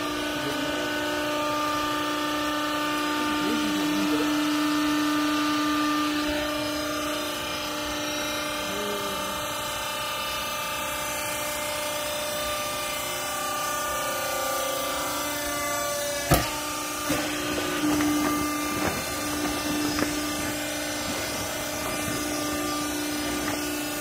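Hydraulic power unit of a vertical wiper-rag baler running with a steady hum while the press plate compresses cloth. A sharp knock comes about sixteen seconds in, followed by a few lighter knocks.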